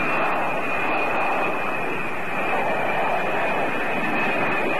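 B-52 bomber's jet engines running as it flies low overhead: a steady, dense rush of jet noise with a high whine held on one pitch.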